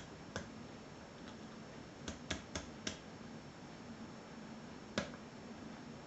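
Sharp clicks from a pick and tension wrench working in a pin-tumbler Euro cylinder lock: one near the start, a quick run of four around two to three seconds in, then one more near the end.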